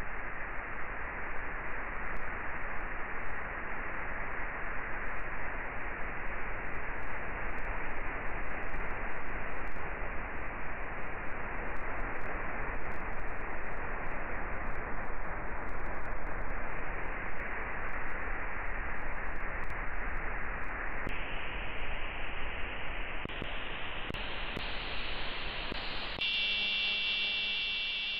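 Steady static hiss from a software-defined radio's AM demodulator tuned near 65 kHz. Late on the hiss brightens in a few steps as the receive bandwidth is widened, and in the last two seconds a steady buzzing tone with several pitches comes in over it.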